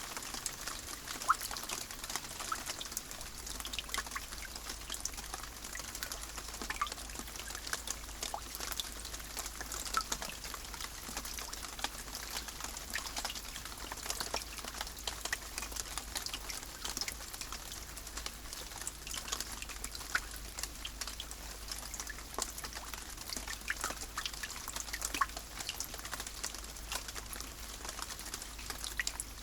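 Steady rain, with many individual drops landing as sharp little ticks over a continuous wash of noise; one louder drop lands about a second in.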